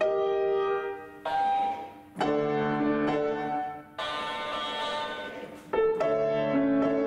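Grand piano playing short melodic phrases, each answered by a plush voice-mimicking dog toy playing the phrase back through its small speaker, thinner and with a hiss. Piano and toy take turns every second or two.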